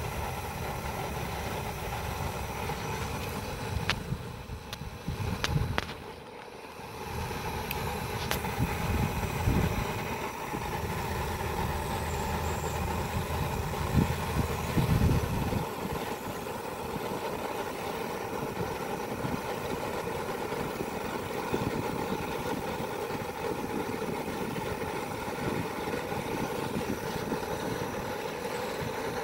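Outdoor propane wok burner running steadily under an empty wok that is being heated to burn off its oil for seasoning. Wind buffets the microphone in low gusts during the first half.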